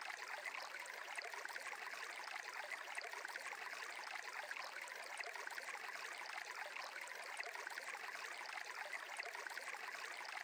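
Faint, steady sound of flowing water, like a small stream, as a background ambience bed.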